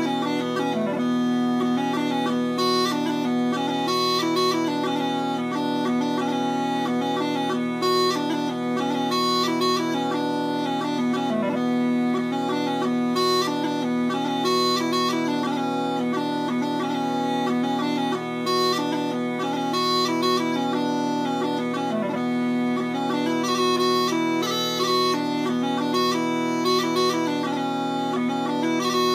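Kinnear A-pitch smallpipes with their drones tuned to B, sounding a steady drone while the chanter, retuned to play against the B drones, plays a fast-moving dance tune.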